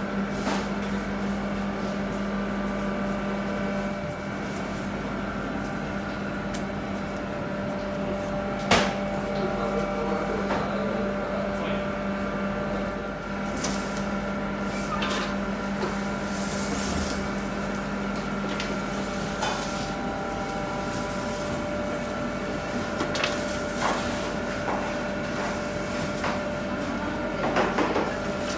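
Steady hum of bakery kitchen machinery with fixed tones, over scattered metal knocks and clatter from baking trays and the oven door being handled. One sharp knock about nine seconds in is the loudest, and a run of clatter near the end comes as a tray of dough is slid into the oven.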